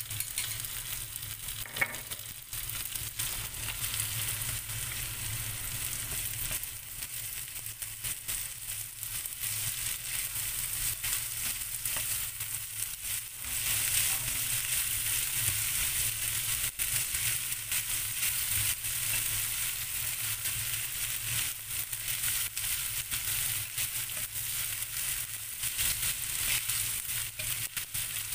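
Onion, carrot and wood ear mushroom sizzling as they are lightly stir-fried in a pan, with the short clicks of stirring. The sizzle gets louder about halfway through.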